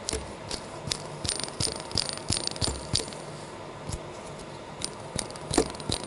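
A worn Soviet 104 ball bearing, just pressed out of a motorcycle clutch, turned by hand and giving an irregular rattle of dry clicks and ticks, a few per second, with one louder click near the end. The owner takes it to be worn out.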